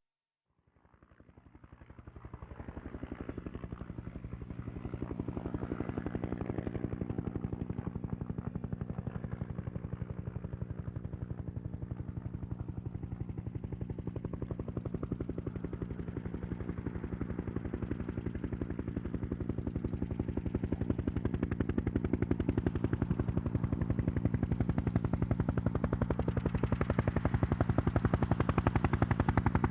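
Bell 212 helicopter approaching, its main rotor blades beating in a fast, steady chop over a turbine drone. It fades in from silence over the first few seconds and keeps growing slowly louder as it nears.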